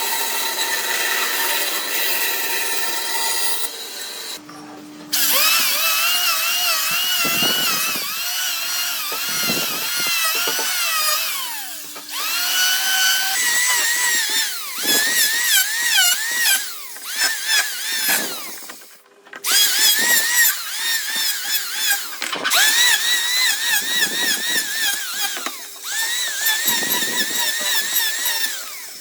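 Handheld electric power tool working wood. Its motor whine holds steady at first, then from about five seconds in repeatedly sags in pitch and climbs back as it takes load and is eased off, with a few short pauses.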